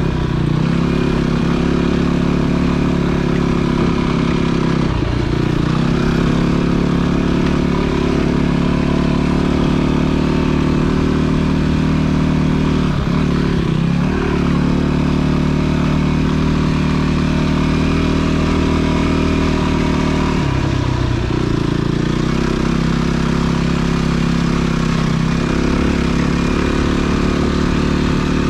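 Off-road motorcycle engine running steadily as the bike rides a dirt trail. The engine note dips briefly and picks back up three times.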